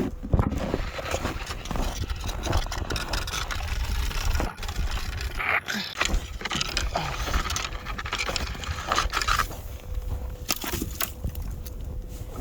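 Dead branches being handled and broken in snow: irregular scraping, cracking and knocking of wood, over a low rumble.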